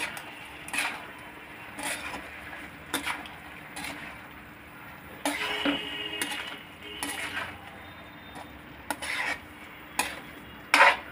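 Slotted metal spatula stirring and scraping potato wedges and fenugreek greens around a kadhai, in irregular strokes about once a second. A little past halfway the pan gives a short metallic ring, and the loudest scrape comes near the end.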